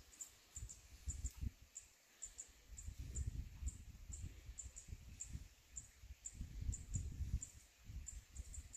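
A small bird repeating short, very high, thin chirps about twice a second, over low, gusty rumbling of wind on the microphone.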